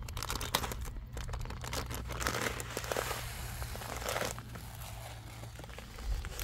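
Plastic bait packaging crinkling and rustling as it is handled, with many small clicks, busiest in the middle of the stretch.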